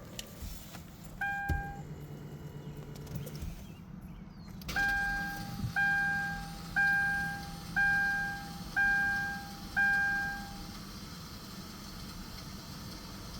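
2012 Kia Optima's interior warning chime: one short chime, then six decaying chimes about a second apart, over a steady low hum from the car. The background hiss rises at about five seconds.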